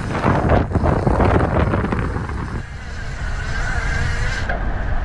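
Wind buffeting the microphone of a handheld camera on a moving bicycle: a steady low rumble with gusty blasts that ease about halfway through.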